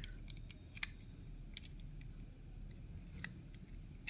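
Faint, scattered clicks and taps of small plastic parts as a body kit is pressed onto a diecast toy car, the sharpest just under a second in, over a low steady room hum.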